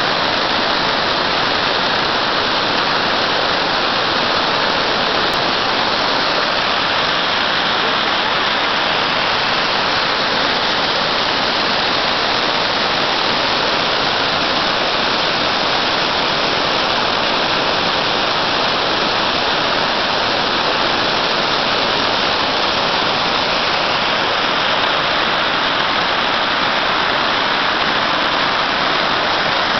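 Waterfall: water pouring down rock faces and crashing, a loud, steady rush with no let-up.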